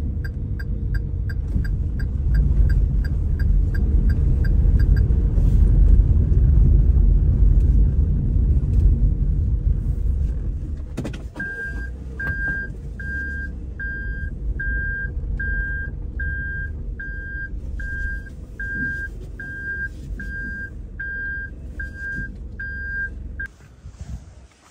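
Car running on the road, heard from inside the cabin as a heavy low rumble, with a fast regular ticking of about three a second over the first five seconds. After a click about eleven seconds in, the rumble drops and a car's electronic warning beep repeats steadily, a little faster than once a second, until it cuts off near the end.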